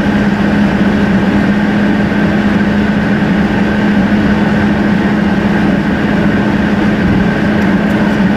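Steady in-cabin road noise of a car cruising at highway speed: tyre and engine drone with a constant low hum, sped up to double speed.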